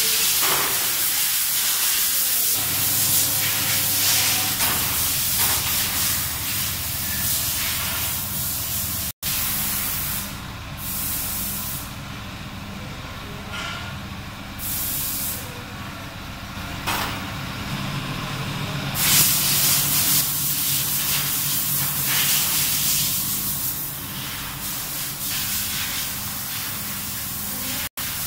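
A loud steady hiss, like air or spray under pressure. It drops out and comes back a few times in the middle. A steady low hum runs under it from about two seconds in.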